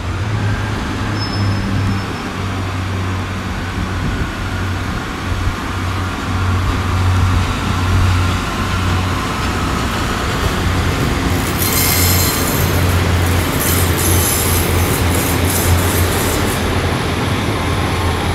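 Class 143 Pacer and Class 150 diesel multiple units pulling out, their underfloor diesel engines running under power with a steady low throb as the coaches pass. About twelve seconds in, high-pitched wheel squeal and scraping rise over it for several seconds.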